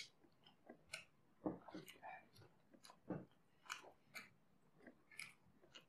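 Quiet, close-miked eating sounds: soft chewing with wet mouth clicks and lip smacks coming irregularly, every half second to a second.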